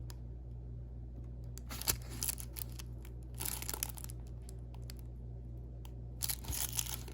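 Plastic packaging and the film-covered canvas of a diamond painting kit crinkling and rustling as they are handled, in three bouts, over a steady low hum.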